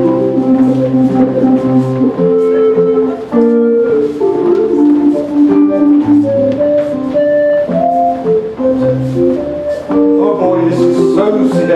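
Instrumental English country dance tune playing for the dancers: a melody of held notes over a steady, repeating bass line.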